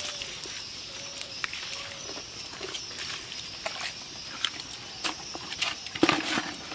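Wet mud squelching and clicking under hands and bare feet as a snakehead fish is picked out of the mud, then a sharp slap about six seconds in as the fish is dropped into a plastic bucket.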